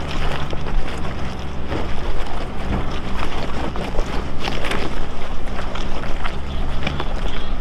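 Lifted Nissan R50 Pathfinder's engine running steadily as it crawls up a steep rock trail, with rocks crunching and knocking under the tyres now and then.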